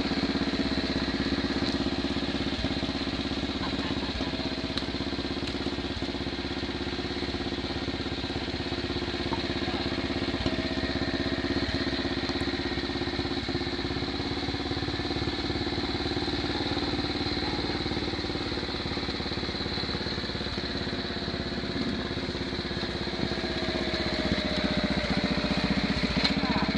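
Allen Roper RT13 garden tractor's engine running steadily as the tractor is driven through rough, overgrown ground.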